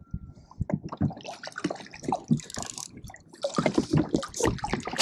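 Water sloshing and lapping against a plastic kayak hull, with many small irregular knocks and clicks.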